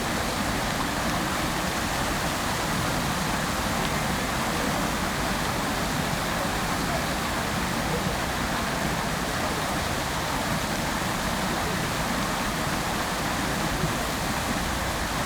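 Fountain water jets splashing down into the basin: a steady, even rush of falling water.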